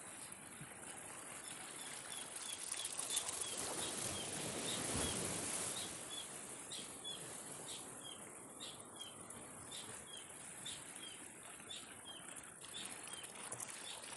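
A small bird chirping over and over, about two short high chirps a second, over a steady rushing background noise that swells for a few seconds near the middle.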